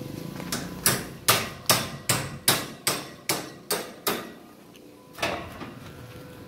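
Hammer blows: about nine sharp strikes at a steady pace of roughly two and a half a second, with a lighter tap just before, then a pause and one more strike about a second later.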